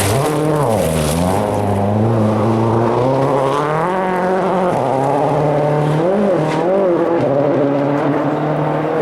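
Rally car engine under hard throttle, its note dipping and climbing about a second in as it shifts gear, then holding high and steady, with a brief dip and recovery around six seconds in.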